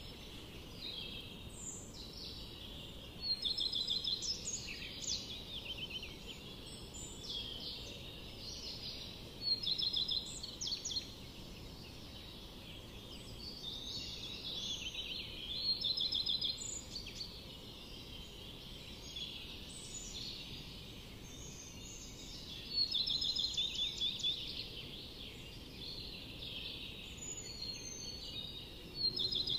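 Small birds chirping and trilling, with louder bursts of rapid trills every few seconds, over a steady low hiss.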